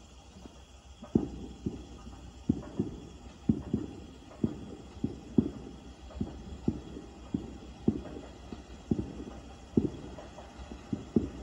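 Distant fireworks booming: a rapid, irregular string of low thumps, one to three a second, starting about a second in, over a steady low rumble.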